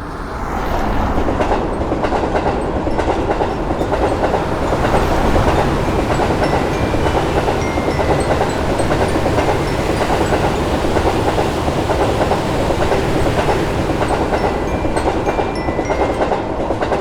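A train passing at speed: a steady, loud rumble with wheel clatter on the rails that swells up in the first second.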